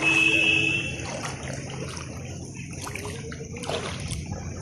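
Wading through shallow floodwater in the rain: irregular splashes of water with a steady hiss of rain. A short steady pitched tone sounds at the start and is the loudest thing.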